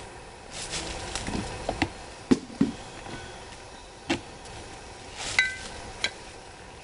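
Feeder jars being handled and set into a two-jar feeding tray: a handful of sharp knocks and clinks spread out, one about five seconds in with a brief ringing tone.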